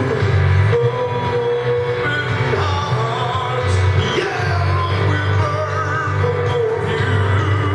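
Live church worship music: voices singing over instrumental accompaniment with held bass notes.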